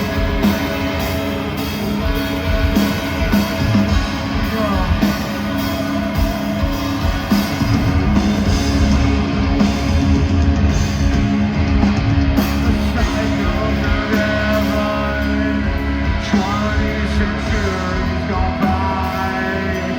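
Live metalcore band playing loud: distorted electric guitars, bass and drums, with vocals.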